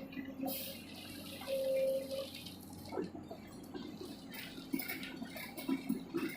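Excavator at work: a steady diesel engine hum, with a hissing rush lasting about two and a half seconds starting about half a second in, followed by scattered clatter.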